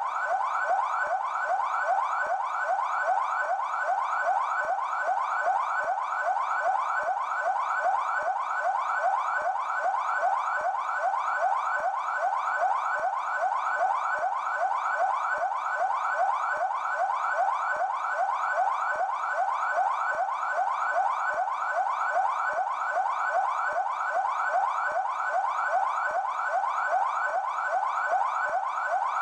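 São Paulo Military Police (PMESP) siren on its yelp tone: a fast, even run of rising sweeps, several a second, repeating without a break at a steady level.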